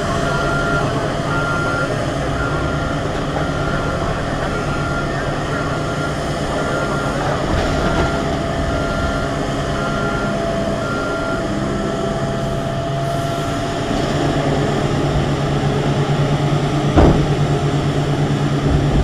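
Komatsu PC8000 hydraulic mining shovel's twin engines running steadily under load, growing louder about three-quarters of the way through. A reversing alarm beeps about once a second over the first two-thirds, and one heavy thud sounds near the end.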